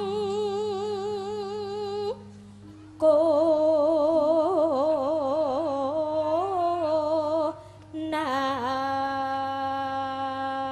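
Javanese sinden (female singer) singing slow, drawn-out notes with wide vibrato into a microphone, in a few long phrases with short breaths between them about two seconds in and again near the eight-second mark, the last phrase a long steady held note.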